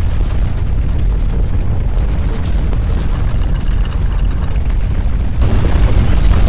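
Deep, steady rumble of strong earthquake shaking. Near the end a broader, brighter noise swells in and it grows louder.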